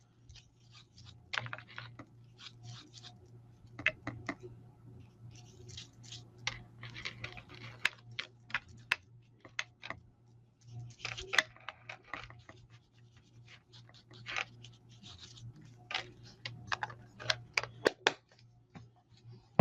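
Irregular light taps and short scratchy rubs on paper as ink is dabbed and swiped onto card stock to colour in a sky background. A faint steady low hum runs underneath.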